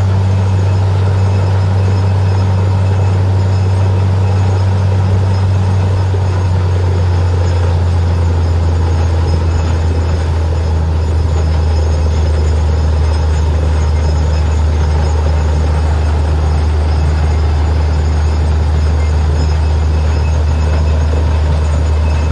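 Truck-mounted borewell drilling rig running steadily while drilling: a loud, steady low drone of its heavy engine and compressor, with the rush of air and muddy water blowing out of the borehole. The drone shifts slightly lower about six seconds in.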